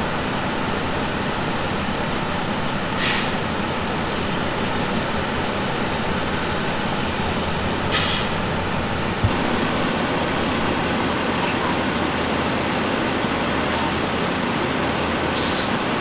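Engines running with a steady drone. Three brief hisses break in, and a single sharp knock comes about nine seconds in.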